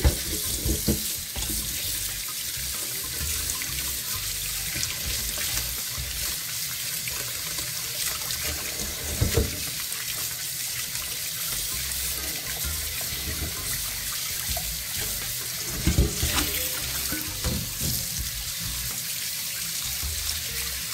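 Kitchen tap running onto green bananas being rubbed clean by hand in a stainless steel bowl in the sink, water splashing steadily. A few short knocks, about nine seconds in and again around sixteen to eighteen seconds in.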